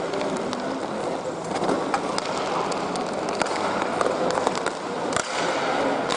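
Hockey play: skates scraping over the playing surface, with many sharp irregular clacks of sticks and puck over a steady rink hubbub.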